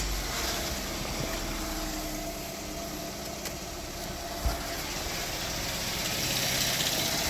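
Car engine idling steadily just after being started, with one short thump about four and a half seconds in.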